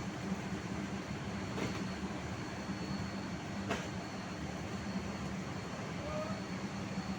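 Steady rumbling running noise of a moving vehicle, with a low hum and two faint clicks about one and a half and three and a half seconds in.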